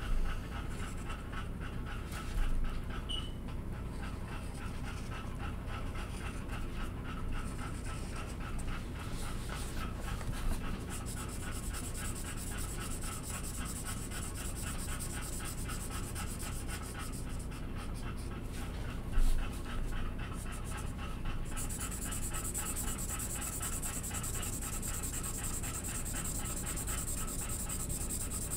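A dog panting steadily in quick, even breaths.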